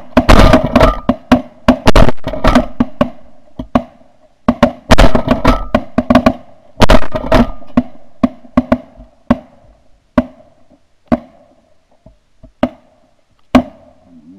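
Shotgun volley from several hunters firing at a flock of snow geese: rapid overlapping shots for the first few seconds and again about five to seven seconds in, then single shots that come further apart and fainter toward the end.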